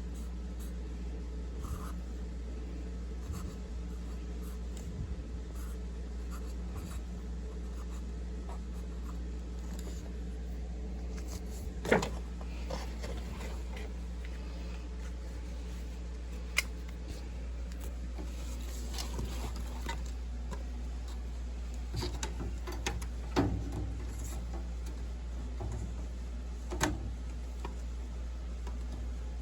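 Steady low hum of running equipment, with scattered clicks, taps and knocks of tools and parts being handled; the sharpest knock comes about twelve seconds in, and a cluster follows later.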